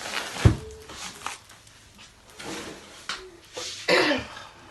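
Cardboard box and packaging being handled as a cutting machine is lifted out, with a heavy thump about half a second in and scattered rustling and rubbing. A short cry is heard in the background near the end.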